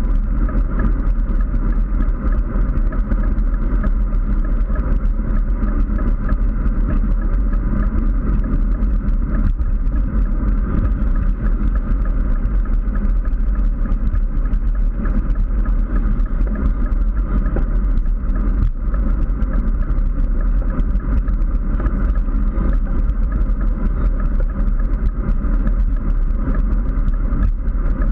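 Steady wind rush and low rumble on the microphone of a GoPro mounted on a road bike riding at speed, mixed with road noise from the bike rolling on asphalt.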